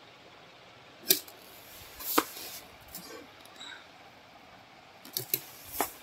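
Sharp clicks and knocks of vacuum cleaner motor units being handled by hand, with no motor running. The loudest knocks come about a second in and just after two seconds, with a quick cluster of clicks near the end.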